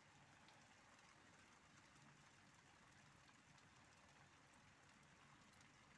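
Near silence: a faint, steady hiss of light rain.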